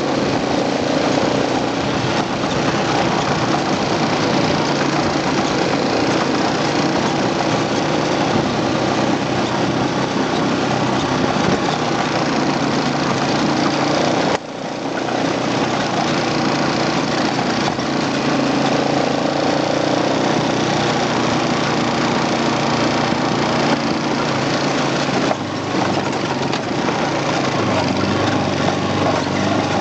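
Quad bike (ATV) engine running steadily as it is ridden over a dirt trail, heard from on board, with a constant rushing noise over it and a brief drop about halfway through.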